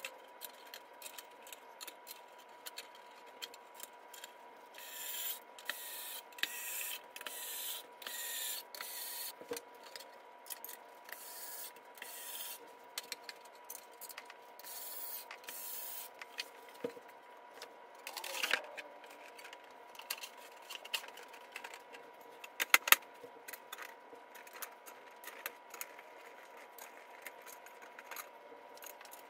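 Flat-pack furniture panels being handled and fitted together by hand: scattered light clicks and knocks, a run of short scraping rubs in the first half, and a couple of sharper knocks past the middle.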